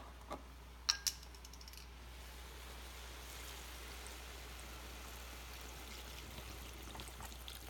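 A couple of sharp clicks about a second in as the plastic cap of a vegetable broth carton is twisted off, then a steady, faint pour of broth from the carton into a pot of diced sweet potatoes and spices.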